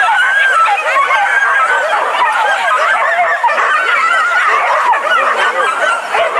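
A pack of hunting dogs yelping and barking together, many high voices overlapping without a break.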